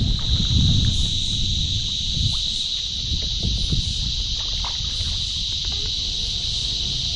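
Insects droning in a steady, high-pitched buzz. In the first second or so there is low rumbling and a few knocks.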